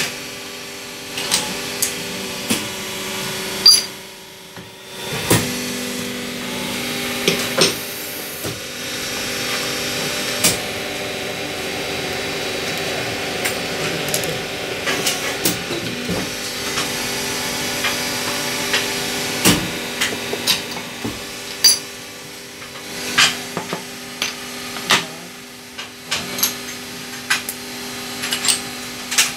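Small plastic injection moulding machine humming steadily, with repeated sharp metallic clicks and clanks as its steel mould is worked by hand. The hum drops out briefly about four seconds in.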